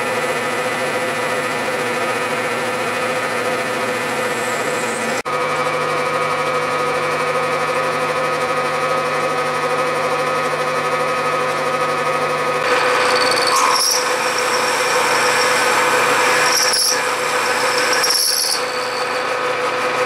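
Bridgeport milling machine running a 3/8-inch end mill through steel tubing, the table advanced by a power feed: a steady machine hum with the cutting noise of the end mill. The sound shifts abruptly about five seconds in and again past twelve seconds, after which a high-pitched ringing from the cut comes and goes.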